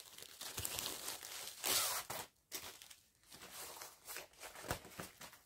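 Plastic packaging rustling and crinkling as a diamond-painting kit is handled and unwrapped, louder about two seconds in, with a few light knocks on the table near the end.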